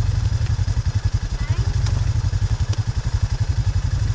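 ATV engine idling: a steady low rumble with a rapid, even pulse.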